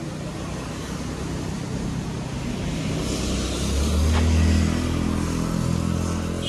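A motor vehicle's engine passing close by on the street, growing louder to its peak about four seconds in and then easing off, with a hiss of tyres on the road as it goes by.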